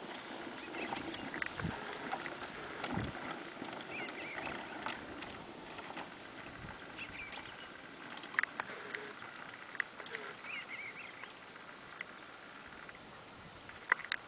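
A horse's hooves on arena dirt as it pulls a Hot Heels roping dummy along behind it, with a few sharp clicks in the second half.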